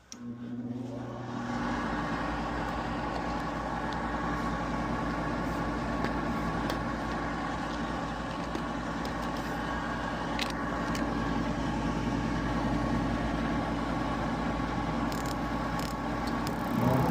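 Goodman gas pack starting its ignition cycle: the draft inducer motor hums into life and runs steadily, with a step up in level near the end.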